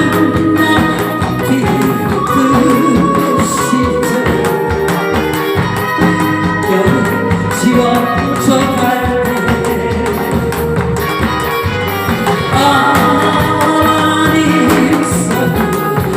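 Korean song with a singer over a backing band, with a janggu hourglass drum beaten in rhythm along with it.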